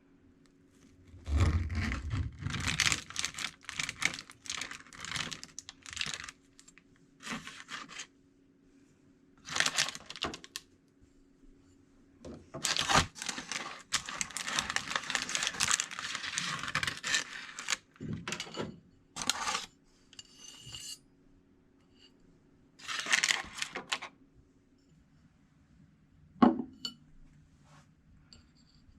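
Kitchen handling sounds: irregular bursts of rustling and scraping, some lasting a second or more, with a single sharp knock near the end and a faint steady hum underneath for most of it.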